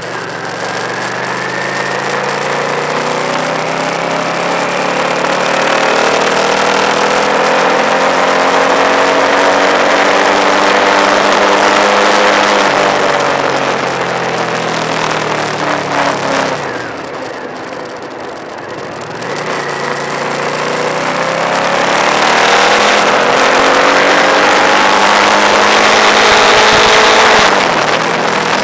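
Motorcycle engine under way, its revs climbing and falling with the throttle, over steady wind rush on the microphone. The engine eases off and goes quieter about two-thirds through, then pulls up through the revs again and drops back near the end.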